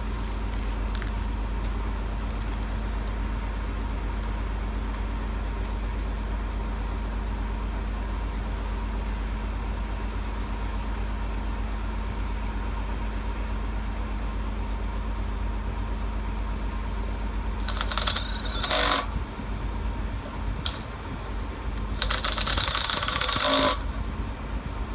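An engine running steadily, a low even hum with a few fixed tones in it. Near the end come two bursts of loud, harsh noise, one about a second long and one about a second and a half.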